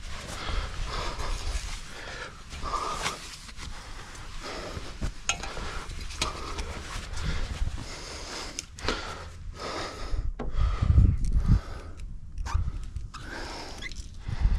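A man breathing heavily close to the microphone, in repeated noisy breaths, while climbing and moving on an aluminium ladder, with a few low thumps of handling noise near the end.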